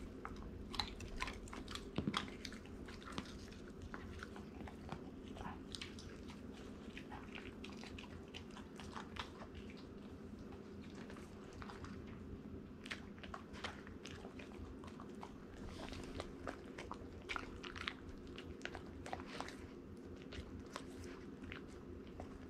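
A greyhound chewing and crunching a crispy-edged treat of baked bacon, cream cheese and white bread, with many irregular crunchy clicks throughout. A low steady hum runs underneath.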